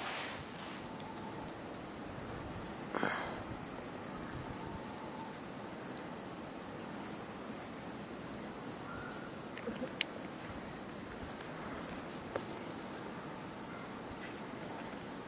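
A steady, high-pitched chorus of insects, an unbroken shrill buzz with no pauses.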